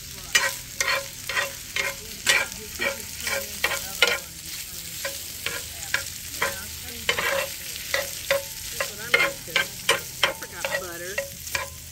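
Diced meat sizzling in a cast-iron skillet on a portable gas stove, with a utensil scraping and stirring the cubes against the pan about twice a second.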